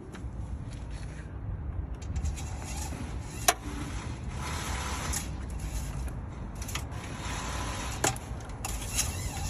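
Handling noise: rustling and rubbing with two sharp clicks, one about three and a half seconds in and another about eight seconds in, over a steady low rumble.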